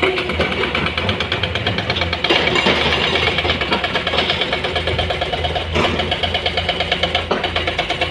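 Diesel engine of a Komatsu PC210 hydraulic excavator running steadily while it works, a fast clatter over a low drone, with one sharper knock about six seconds in.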